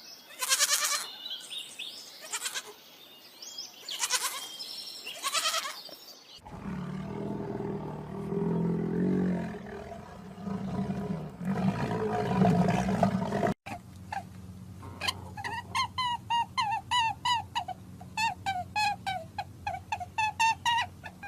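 A string of animal calls: several bleats, then a long low rumbling call, then a fast run of short high chirps, about three a second.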